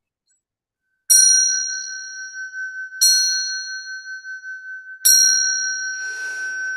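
A small ritual bell struck three times, about two seconds apart, each strike ringing on with a clear high tone, to open a chanted Buddhist prayer. A short breath near the end.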